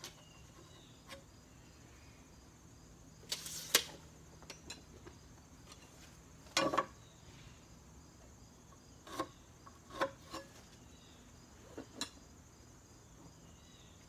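Scattered knocks, clicks and rustles of hands and tools on a wooden 2x6 frame during measuring and marking. The loudest is a half-second swish ending in a sharp snap about four seconds in. Faint crickets chirp steadily behind.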